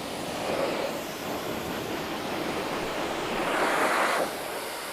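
Steady hiss of water spraying from a hose onto a motorcycle wheel, growing louder for a moment about three and a half seconds in.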